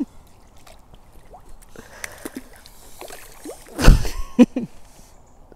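An eel splashing at the water's surface while being worked towards a landing net, with one loud splash about four seconds in.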